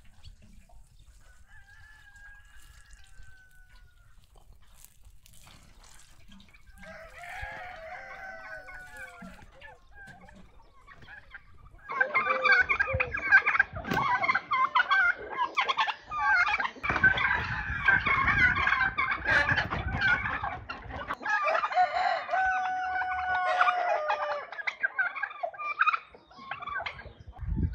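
Farmyard chickens clucking and calling over one another, faint at first, then loud and crowded from about twelve seconds in.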